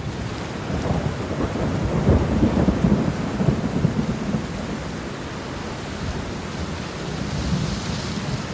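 Steady rain with a low, rolling thunder rumble that swells and is loudest two to three seconds in, then eases back to the rain.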